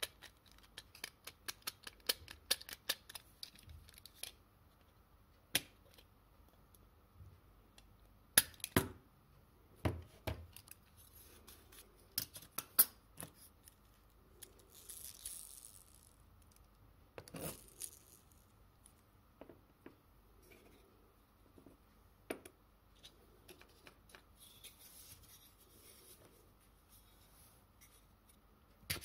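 Small tin toy car being handled and taken apart: a quick run of light metallic clicks, then scattered sharper clicks and taps with soft rubbing as the sheet-tin parts are worked loose.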